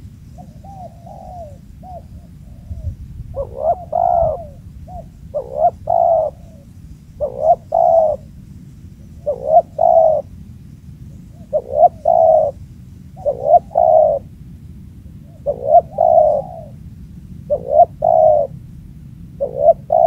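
Spotted dove (tekukur) cooing: a few softer coos at first, then from about three seconds in a loud, repeated two- to three-note coo roughly every two seconds.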